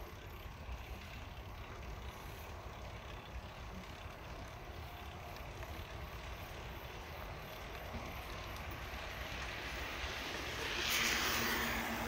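Steady low rumble of wind on the microphone and rolling tyres during a bicycle ride, building near the end into a hissing swell as an electric scooter draws alongside and overtakes.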